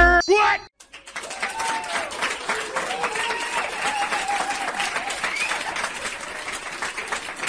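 Applause, many hands clapping steadily with a few voices mixed in, starting about a second in after a short burst of music cuts off.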